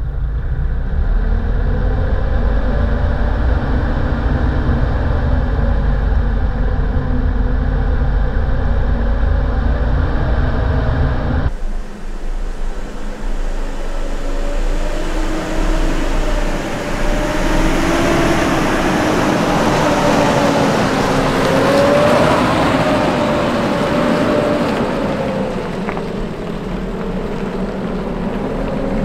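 A Nissan Navara four-wheel drive's engine running on a gravel track. First comes a steady low engine and road rumble heard on board. Then, after a sudden change about twelve seconds in, the engine note rises and falls over tyre noise on gravel as the vehicle moves off.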